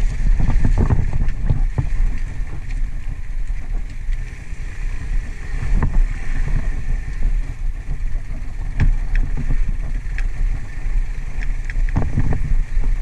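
Motorcycle engine running at low speed on a rocky gravel track, with a steady low rumble and wind on the microphone. Occasional sharp knocks and clicks of stones and the jolting bike come through, a few of them about 6, 9 and 12 seconds in.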